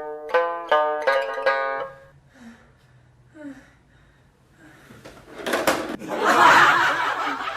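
Alarm ringtone playing a plucked-string melody of short notes, stopping about two seconds in. Then a lull, and near the end a loud burst of noise.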